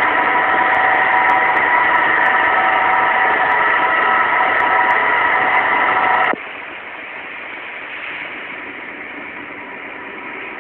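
Steady engine drone with several held tones in it, which drops abruptly about six seconds in to a quieter, duller drone.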